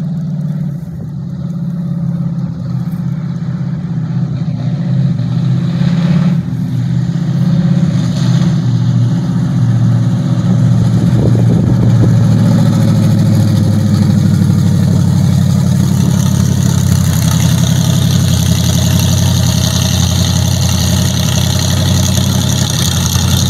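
GM ZZ454 big-block V8 in a 1950 Chevy 3100 pickup, its exhaust rumbling deep and steady as the truck rolls in at low speed. The rumble grows louder as the truck comes closer over the first half, then holds.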